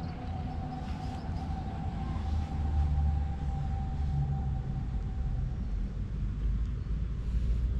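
A vehicle engine running: a steady low rumble with a thin steady whine that fades out about five seconds in.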